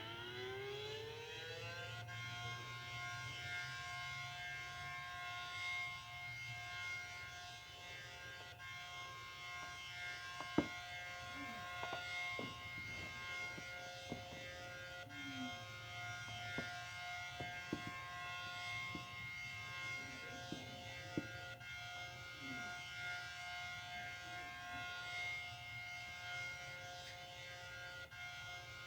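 ACA Allertor 125 outdoor warning siren finishing its wind-up about two seconds in, then holding a steady tone: the steady alert signal of a routine monthly siren test.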